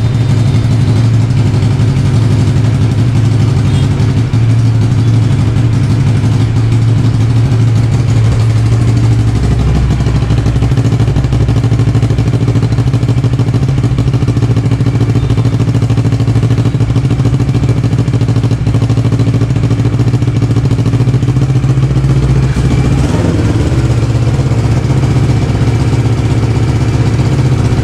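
Kawasaki 650's parallel-twin engine running steadily at idle through a newly fitted aftermarket silencer that is only temporarily mounted on the stock header pipe.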